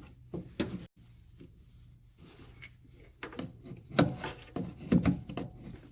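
Flat screwdriver prying at a headlight bulb fitting: a couple of short clicks at the start, then after a pause a run of sharp clicks, knocks and scraping as the fitting is worked loose.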